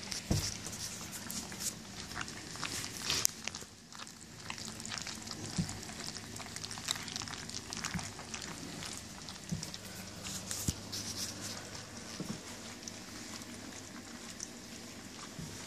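German Shepherd puppies of weaning age eating mushy food from a stainless-steel puppy pan: a steady stream of wet lapping, smacking and small clicks.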